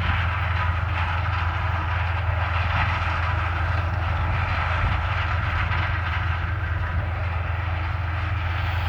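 Harvest machinery engines, a combine harvester and the grain-cart tractor, running steadily: a constant low engine hum under an even rushing hiss.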